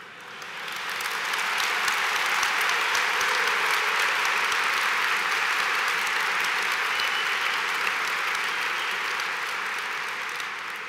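Large audience applauding, swelling over the first couple of seconds, then holding steady and easing slightly near the end.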